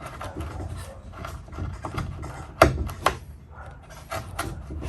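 Benchmade Mini Adamas knife blade push-cutting and rocking through a genuine leather belt: scratchy creaking and scraping with scattered clicks, two sharp ones about half a second apart a little past the middle.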